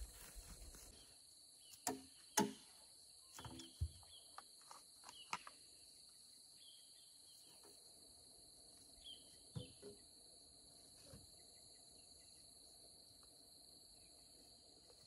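Faint, steady high-pitched drone of insects, with a scatter of sharp knocks and rustles from handling and footsteps. The knocks are loudest about two and a half seconds in, cluster in the first few seconds, and come again a couple of times around ten seconds in.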